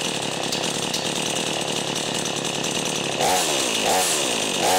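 XtremepowerUS 45cc two-stroke gas chainsaw, warmed up, running steadily at idle. About three seconds in, the throttle is squeezed repeatedly and the engine revs up and drops back about once every 0.7 seconds.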